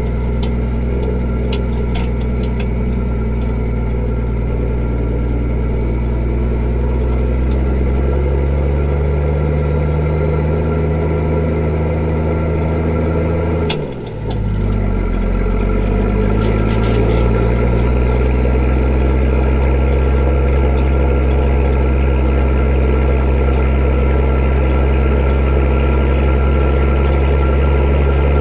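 Nissan TD42 4.2-litre straight-six diesel with a straight-through exhaust, running steadily. Its pitch rises a little, dips sharply with a click about halfway, then climbs back and holds steady.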